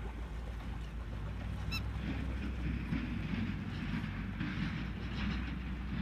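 Mahindra Scorpio's diesel engine running in a steady low rumble under a rough rushing noise that swells from about two seconds in. One brief high chirp sounds just under two seconds in.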